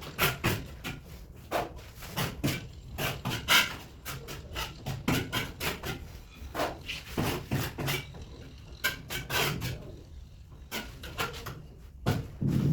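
Hand-tool work on marble countertop pieces: a run of irregular sharp taps and knocks, several a second, with rubbing or scraping between them.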